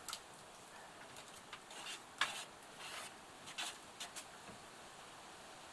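Bread mix being stirred by hand in a bowl: faint, irregular short scrapes and rustles as air is worked into the flour.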